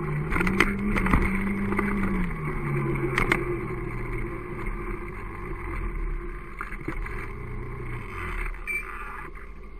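Motorcycle engine running as the bike rides along and slows: its pitch steps down about two seconds in, holds lower, and the engine tone fades out a little after eight seconds as the bike comes to a stop. A few sharp knocks in the first three seconds.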